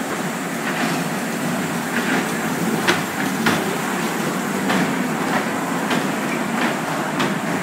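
Small ride-on kiddie train running along its track, heard from a seat aboard: a steady rumble with sharp clicks of the wheels over the rail joints every half second or so.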